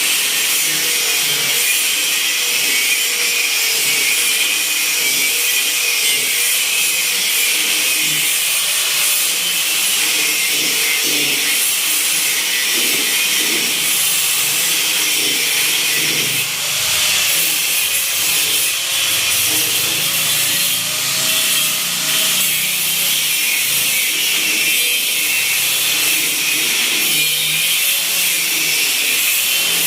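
A handheld power tool running steadily against a surface: a continuous hissing grind with a slightly wavering motor tone underneath, typical of sanding or grinding during vehicle body repair.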